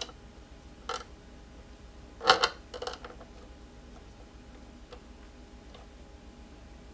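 A few light knocks and clicks: one about a second in, a louder group of two or three around the middle, then a couple of faint ticks over quiet room tone.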